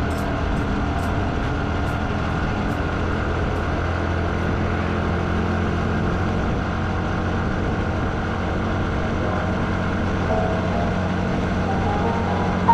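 Motorcycle engine running steadily while riding, a constant low hum. Near the end a short tune of stepping notes comes in over it.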